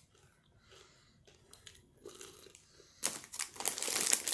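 Near quiet with a few faint ticks, then about three seconds in a plastic snack bag starts crinkling loudly in close, rapid crackles.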